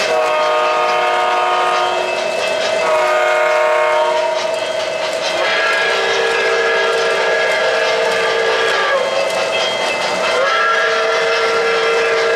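O-gauge model trains' sound systems sounding long multi-note train-horn chords, several blasts that overlap and shift in pitch, over the running noise and faint rail clicking of the moving trains.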